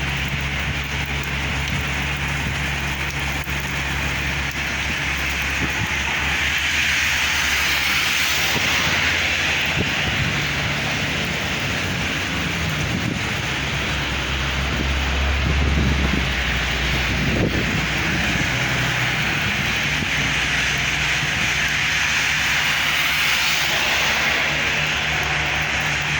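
Heavy rain pouring steadily, with a low engine hum underneath; a low rumble swells briefly about halfway through.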